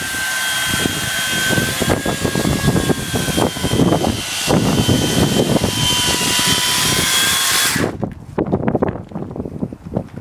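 Corded electric chainsaw running and cutting ice, a loud steady motor whine over harsh sawing noise. It stops suddenly about eight seconds in, leaving scattered knocks and scrapes.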